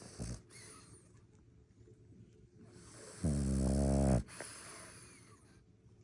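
French bulldog snoring in its sleep: one loud, low snore about three seconds in, lasting about a second, with breathy hissing before and after it.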